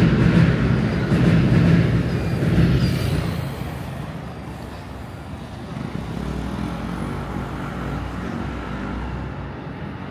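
A vehicle passing close, loudest for the first three seconds or so, then dying down to steady urban traffic noise.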